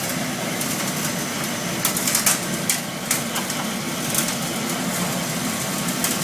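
Industrial sawdust burner running at full fire: a steady rush of flame and blower with a low hum, broken by irregular sharp crackles and pops.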